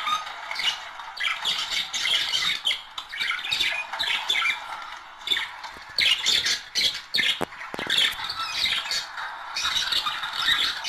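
A pair of budgerigars warbling and chattering together: continuous rapid squawks, chirps and clicks with no pauses.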